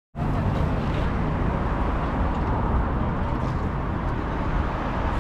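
Steady road traffic noise from passing cars, a continuous low rumble that cuts in suddenly just after the start.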